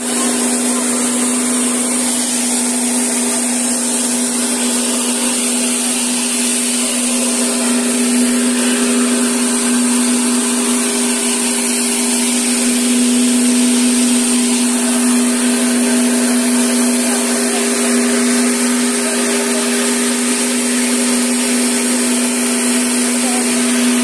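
Combined rice mill (huller and polisher in one) driven by an electric motor, running steadily while milling paddy: a constant hum on one pitch with a whirring hiss over it.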